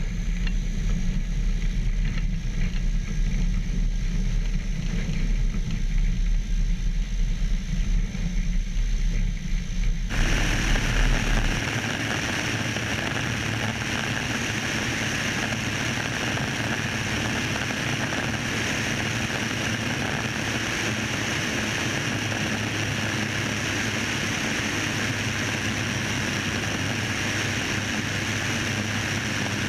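Light single-engine propeller plane running at full power for takeoff from snow, with wind rushing over the wing-mounted camera. A heavy low rumble gives way abruptly about ten seconds in to a steadier, higher rush once the plane is airborne.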